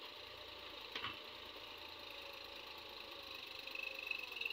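Diesel engines of Massey Ferguson tractors running steadily as their tractor-mounted backhoe excavators dig soil, with one brief short sound about a second in.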